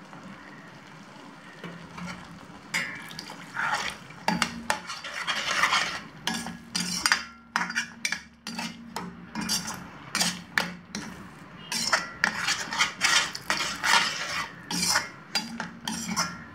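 A spoon stirring and scraping around a pan of thick paneer butter masala gravy in quick, irregular strokes, working in a little added water to thin it. The stirring starts about three seconds in.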